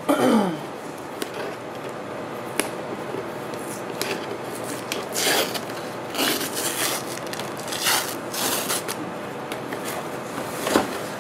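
A small cardboard subscription box being opened by hand: cardboard and paper scraping and rustling in several short bursts.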